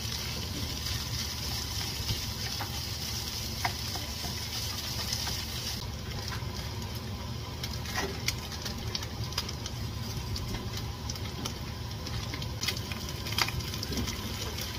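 Ground meat, hot dogs and carrots sizzling in a frying pan, with scattered clicks of a wooden spatula against the pan. The high sizzle eases about six seconds in.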